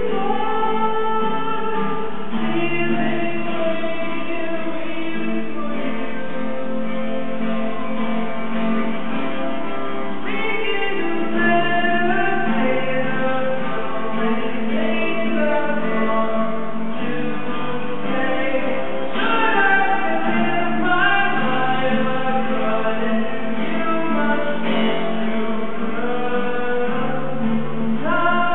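A man singing a song, accompanied by acoustic guitar.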